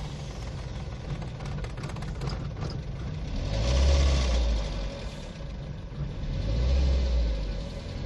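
Nissan Sentra four-cylinder engine idling, revved up twice, about three and a half and six and a half seconds in, then settling back. The engine is logging random-misfire code P0300 and stalling once hot, which the mechanic puts down to an internal engine problem.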